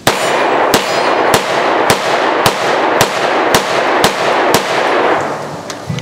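Bersa TPR9c 9mm semi-automatic pistol firing nine rapid shots, about two a second, with Buffalo Bore 124-grain +P+ loads; each report echoes and overlaps the next, and the echo dies away after the last shot.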